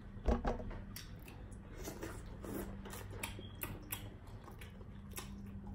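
Quiet sounds of people eating: scattered soft clicks and smacks of chewing and fingers handling food, over a faint steady hum.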